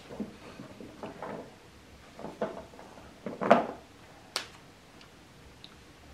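Small sewing-machine accessories, plastic bobbins and a metal bobbin case among them, handled and set down on a wooden tabletop. It gives a few soft knocks and clicks; the loudest comes about three and a half seconds in, with a sharp click just after.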